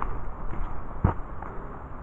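Hiker's footsteps on a forest trail: two thumps about a second apart over a low, steady rumble.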